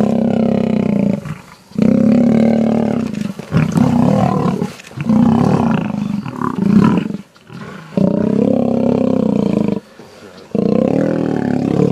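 Male lions fighting, roaring in about six long bouts of a second or two each, with short breaks between.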